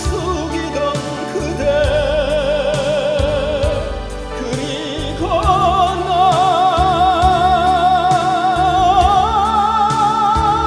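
A tenor singing in a classical, operatic style with wide vibrato over a backing accompaniment. From about halfway he holds one long note, then steps up to a higher held note near the end.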